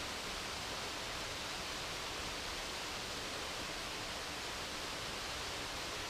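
Waterfall making a steady, even rushing noise.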